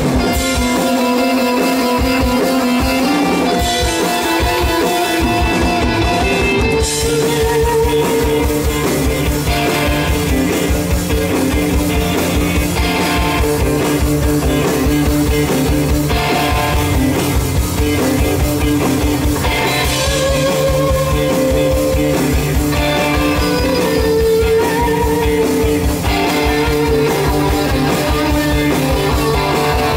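Live fuzz-guitar psychedelic rock band playing through a stage PA: electric guitars holding sustained notes over bass guitar and a steady drum-kit beat, heard from the audience.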